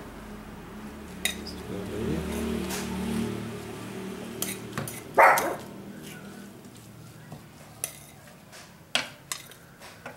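Metal spoon scraping and knocking in a pan as leftover cooked rice is tipped in from a glass bowl and stirred into the fried mixture. There are scattered clinks, with the loudest scrape about halfway through, and a low hum over the first few seconds.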